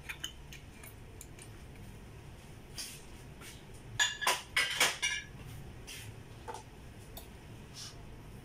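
Kitchen handling sounds: scattered light clicks and ticks, and about four seconds in a short flurry of sharp knocks and clinks of dishes and utensils. A low steady hum runs underneath.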